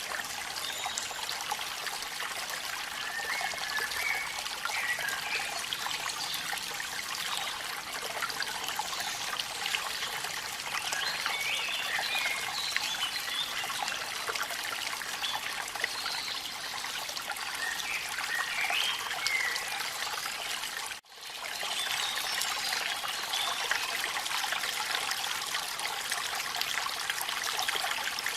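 Steady rushing and trickling of a waterfall in the rain, with faint short chirps now and then. The sound drops out for a moment about 21 seconds in.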